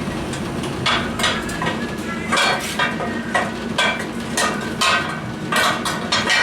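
Hammer striking steel repeatedly, roughly two blows a second with a metallic ring, driving a cultivator tine into place on the frame.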